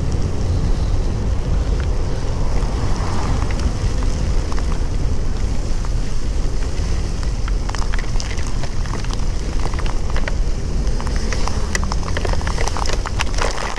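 Wind rushing over the microphone of a moving motor scooter in heavy rain, with raindrops ticking against it, more often in the second half.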